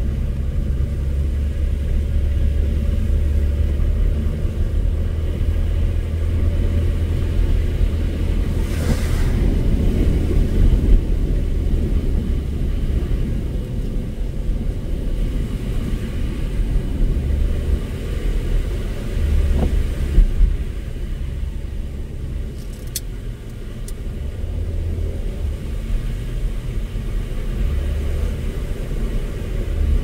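A car being driven along a snow-covered mountain road, its engine and tyres giving a steady low rumble.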